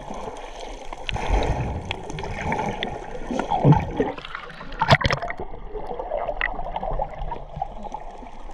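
Muffled water sloshing and gurgling around a camera held just under the sea surface, with a sharp splash about five seconds in.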